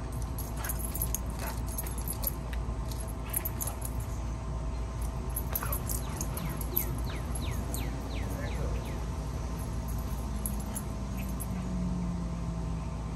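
American Staffordshire terrier at play, jumping for a ball, its collar jingling amid short scuffs and clicks, over a steady low outdoor rumble.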